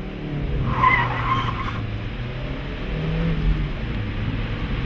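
A vehicle's engine running hard as it accelerates away, over a steady rush of noise, with a brief squeal about a second in.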